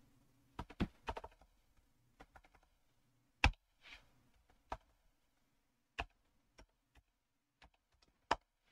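Typing on a computer keyboard: scattered, uneven keystrokes with pauses between them, a few struck harder than the rest.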